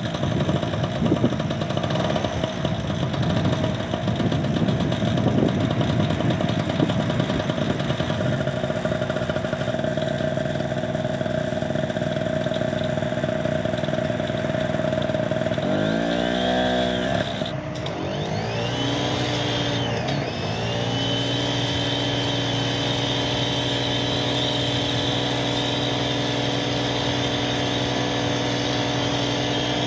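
Small portable gas generator running steadily. About 16 s in, its engine pitch dips and swings for a few seconds as the electric pressure washer it powers loads it. It then settles at a steady pitch, joined by a high, steady whine.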